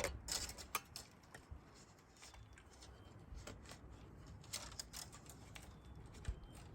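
Thin 20-gauge wire being handled and worked against a wicker basket: faint, scattered light clicks and scratches, the sharpest one right at the start.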